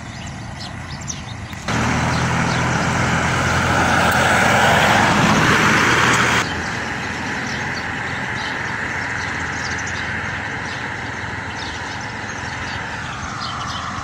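A road vehicle's engine and tyre noise comes in suddenly about two seconds in, swells, and cuts off sharply around six seconds in. After that, a quieter, steady traffic-like noise slowly fades. Birds chirp in the quieter parts.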